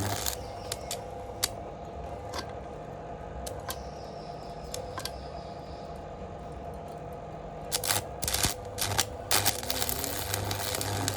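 Stick-welding arc from a homemade 110 V DC welder on steel plate, crackling and sizzling in bursts: briefly at the start, then in a pause of a few seconds with only a low hum and scattered ticks, then again, strongly, for the last three seconds. The welder's low hum grows louder each time the arc burns.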